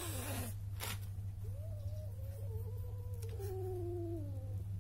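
A cat meowing: a short falling cry at the start, then one long drawn-out meow that wavers and drops in pitch near the end. A steady low hum runs underneath.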